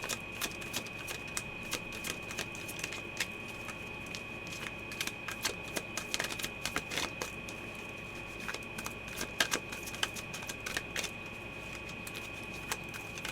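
Tarot cards being shuffled and handled: a run of irregular light clicks and taps, over a faint steady high-pitched tone.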